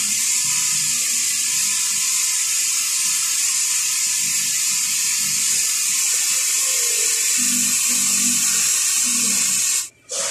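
Air-powered orbital sander running steadily with a high, hissing whir as its pad sands through red paint on a car body panel. The sound cuts off suddenly near the end.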